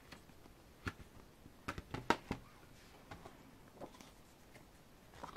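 Scattered soft taps, clicks and rustles of a cardboard album slipcover and photo book being handled and slid apart, with a few light knocks as the cover is laid on a glass tabletop.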